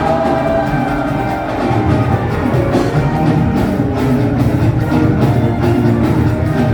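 Lively music driven by drums and percussion, with a steady beat.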